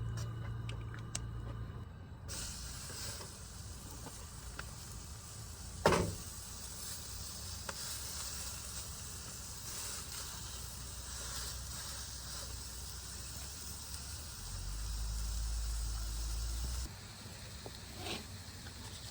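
Ground beef burger patties sizzling on a grill, a steady hiss, with one sharp knock about six seconds in.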